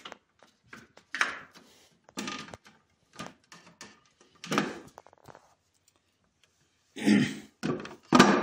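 Old carved walnut-wood cupboard door and its broken pattern lock being handled: a string of wooden knocks and rattles, the loudest near the end.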